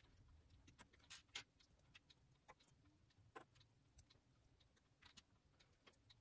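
Faint, irregular clicks of small plastic LEGO pieces being picked off a tabletop and pressed together by hand.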